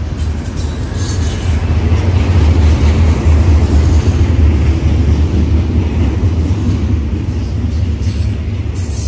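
Freight train's loaded container well cars rolling past: a loud, steady deep rumble of steel wheels on rail.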